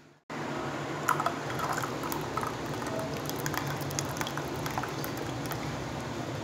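Ground banana-stem juice being poured from a steel mixer-grinder jar through a strainer, a steady pour with a few small clicks.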